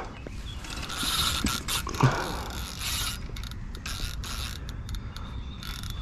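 Fishing reel working as a ghost carp is played on the line: a whirring for the first few seconds, then irregular ratchet-like clicks.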